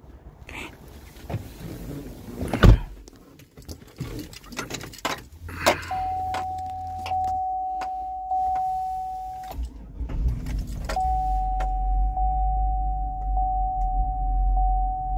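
Knocks, thumps and rustling of someone climbing into an SUV's driver seat. Then a steady high electronic warning chime tone from the dashboard with soft regular ticks; it breaks off for a second or so about two-thirds through and comes back, over a low hum that grows near the end.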